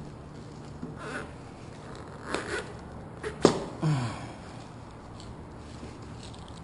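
Intermittent scrapes and squeaks of a pipe knife being worked through the urethane adhesive around a pickup's back glass, with a sharp click about halfway through followed by a short falling squeak.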